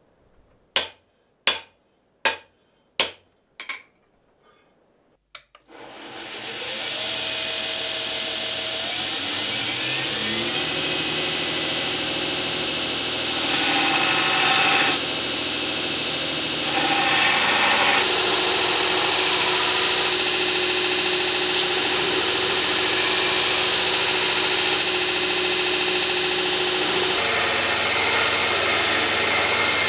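Four sharp strikes about three-quarters of a second apart. Then a belt grinder's motor starts with a whine that rises as it comes up to speed. A steel knife blade is ground against the running abrasive belt, and the grinding noise gets louder whenever the blade is pressed in.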